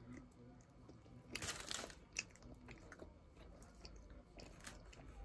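A person chewing and biting food, with faint crunches and a louder crunchy stretch a little over a second in.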